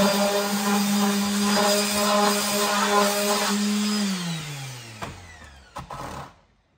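Handheld random orbital sander running steadily against the cut edge of a plastic milk crate. About four seconds in it is switched off, and its hum falls in pitch as it spins down, followed by a few light knocks.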